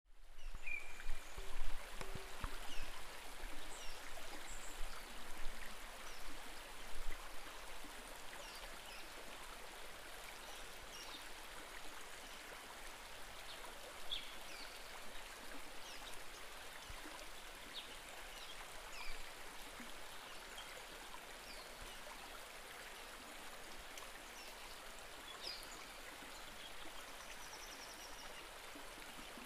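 Shallow stream water rushing and splashing over rocks, uneven for the first several seconds and then a steadier rush, with a few faint, high bird chirps scattered through it.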